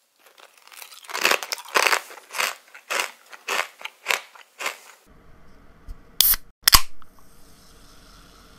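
Crunchy octopus chips being chewed, a crisp crunch about twice a second for some five seconds. After a short pause come two sharp clicks in quick succession.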